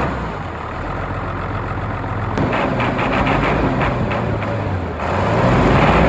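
Mitsubishi 6D16 inline-six diesel engine running just after start-up, test-run after a new gasket was fitted. The note picks up about two and a half seconds in and grows louder again near the end.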